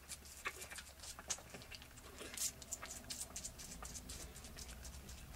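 Toggenburg goat kid sucking milk from a baby bottle's nipple: faint, irregular clicks and smacks.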